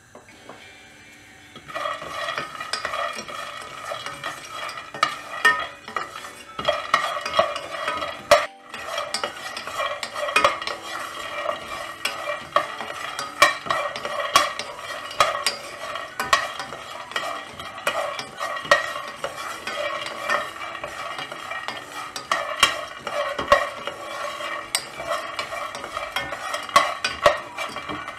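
Peanuts being dry-roasted in a metal pot and stirred with a wooden spoon: the nuts rattle and click against the pot and spoon, a dense run of small ticks with the pot ringing faintly under them. The stirring starts about two seconds in and keeps on.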